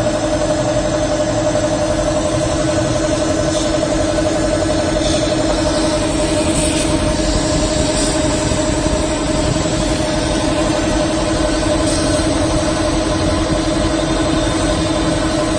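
CO2 laser cutting machine running while it cuts sheet material: a loud, steady two-note hum over an even rush of fan and air noise, with a few faint brief hisses.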